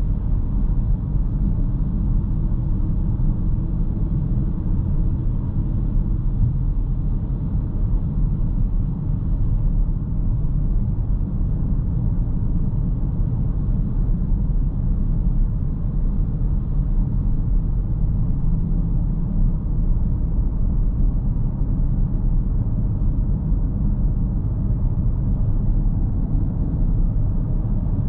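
CAOA Chery Tiggo 8 SUV on the move, its 1.6-litre petrol engine running with road noise in a steady low rumble heard from the driver's seat, with no revving or gear change standing out.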